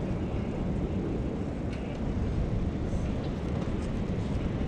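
Steady low rumbling outdoor noise with a few faint clicks over it.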